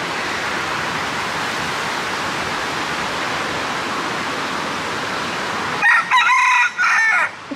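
Steady rush of falling water, then about six seconds in a rooster crows once, loud over the water noise.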